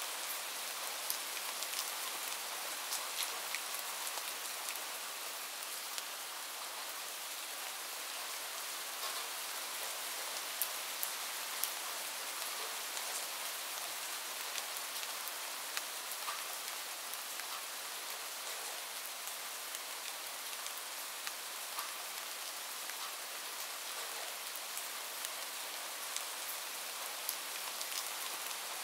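Light rain falling steadily: an even soft hiss, dotted all through with sharp little ticks of nearby drops hitting a hard surface.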